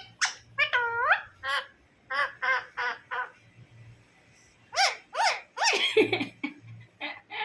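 Pet parrot giving a rapid series of short, high-pitched calls, several swooping down and back up in pitch, in bursts with short pauses between.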